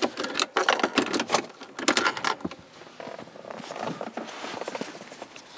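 A quick run of clicks and light rattles over the first two seconds or so, then softer rustling.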